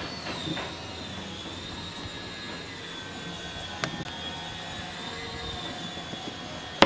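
A steady high-pitched machine whine that wavers slightly in pitch, over a low background hum. A light click about four seconds in, then a sharp wooden knock near the end as a glued wooden block is set down on the table.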